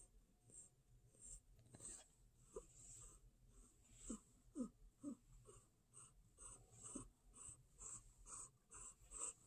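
Domestic cat making a string of faint, short grunts, some falling in pitch, coming quicker in the second half.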